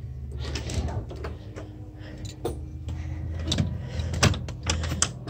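A sliding patio door and its screen being opened by hand, with several clicks and knocks from the latch and frame in the second half.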